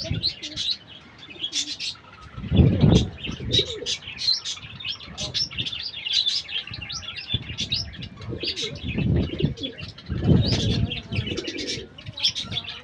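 Pigeons cooing in several louder low bursts, over a steady stream of short, high chirps from other birds.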